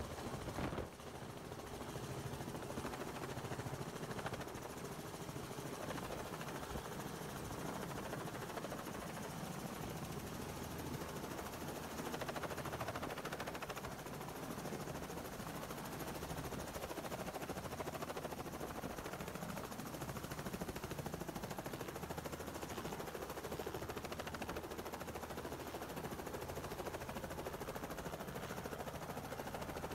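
Robinson piston helicopter's engine and rotor running steadily as it descends vertically to land, with a steady low hum under a broad rush of noise.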